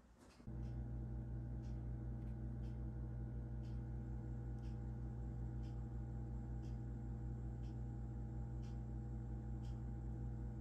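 Kitchen range hood fan switched on, its motor running with a steady low hum that starts suddenly about half a second in. Faint light ticks come about once a second.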